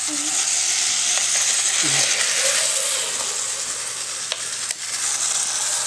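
Motorised toy bullet train running on plastic track: a steady whirring, rattling hiss from its small motor, gears and wheels, with a couple of sharp clicks about four seconds in.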